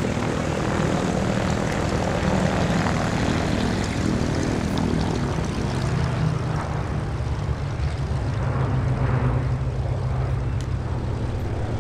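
Rolls-Royce Merlin V12 piston engines of two Spitfire Mk Ia fighters and a Hurricane Mk I running steadily as the propeller-driven formation flies over, the engine note dropping slightly about halfway through.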